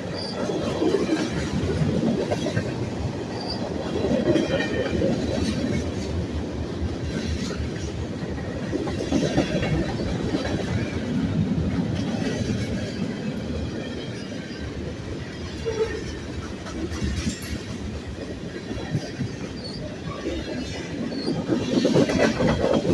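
Freight cars of a mixed train (tank cars and covered hoppers) rolling past close by: a steady rumble and rattle of steel wheels on the rails that swells and eases as cars go by, and grows louder near the end.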